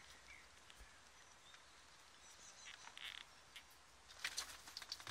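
Rabbits chewing carrot tops: faint crisp crunching and crackling of the stalks and leaves, in short runs about three seconds in and again, a little louder, just after four seconds.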